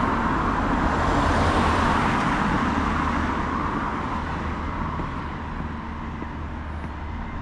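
Road traffic: a vehicle passing close with tyre and engine noise, loudest in the first couple of seconds and then fading away into steady background traffic.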